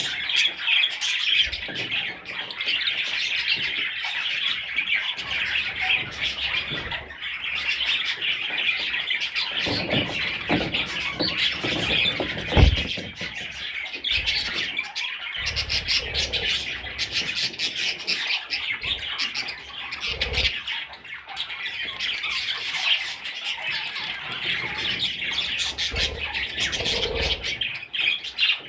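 Budgerigar chicks calling continuously, a dense chatter of high squawking cheeps. A single low thump about halfway through.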